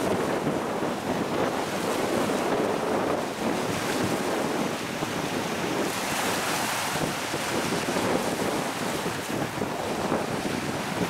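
Strong, gusty wind buffeting the microphone over rough, whitecapped water. The rush of noise swells and eases with the gusts.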